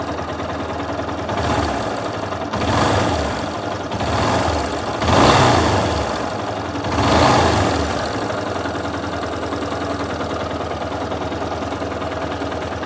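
Yamaha Fazer 250's single-cylinder engine idling, revved briefly five times over the first seven seconds or so, then settling back to a steady idle. The owner hears a noise in the engine that he cannot explain.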